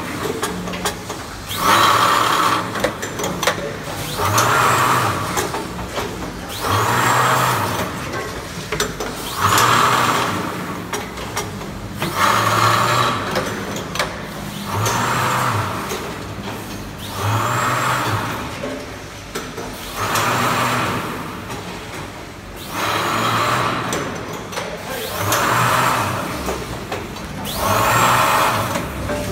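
Automatic grain and nut weighing and vacuum-packing machine running through its cycle: a rushing hiss, opened by a short rising whistle, repeats about every two and a half seconds over a low hum.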